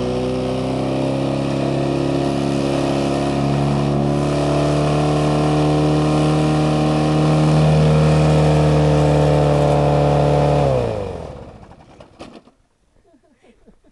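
Lawnmower engine running flat out, its pitch creeping higher, then dying about eleven seconds in, the pitch dropping quickly as it winds down to a stop. A few faint clicks follow.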